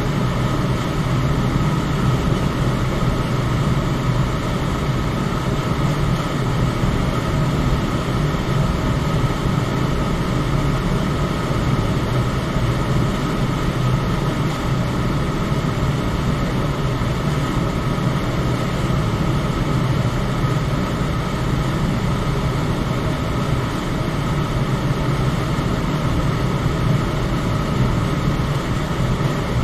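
Electric fan running steadily: a constant whooshing hum, heaviest in the low range, with a faint steady tone above it.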